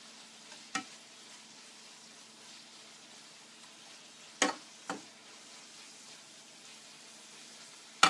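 Tempe and clams frying in a pan with a faint steady sizzle, stirred with a spatula that knocks sharply against the pan four times: about a second in, twice around four and a half seconds, and loudest at the very end.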